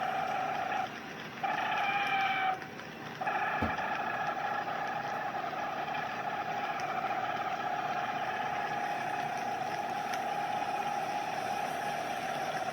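A steady, high droning tone with overtones, heard in the sky. It drops out twice in the first few seconds and then holds steady. The uploader takes it for the magnetosphere 'flipping around' and 'relieving pressure'.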